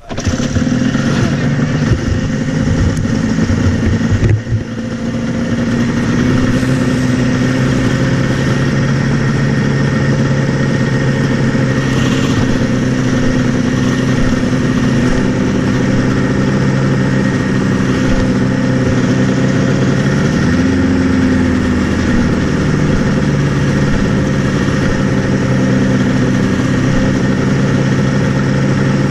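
Two-stroke engine of a vintage TX340 racing snowmobile idling, uneven for the first few seconds and then steady, with one short rev about twenty seconds in.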